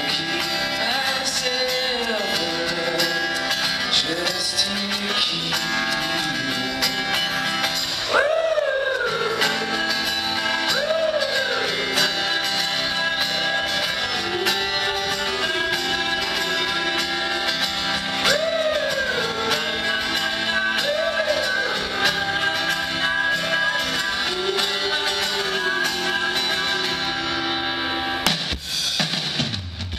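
Indie-folk band playing live, a voice singing long notes that rise and fall over guitars and the rest of the band. There is a brief break in the sound near the end.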